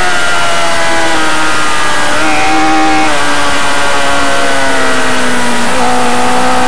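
Racing motorcycle engine under way, with wind rush over the onboard microphone. The engine note steps down about a second in and then sags slowly while the bike is leaned through a long corner. It rises again near the end as the throttle is opened on the exit.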